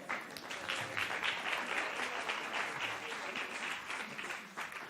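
Congregation applauding, a burst of clapping that starts at once and fades near the end.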